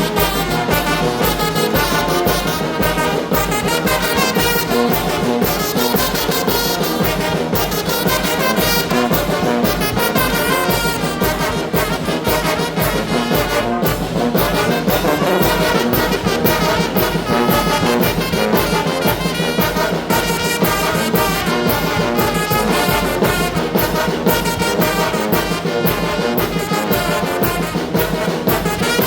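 Mexican brass band (banda) playing a huapango, with trumpets and trombones over a steady percussion beat.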